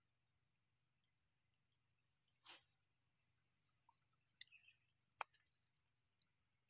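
Near silence: a faint, steady high-pitched insect drone, like crickets, with a few soft clicks about two and a half, four and a half and five seconds in.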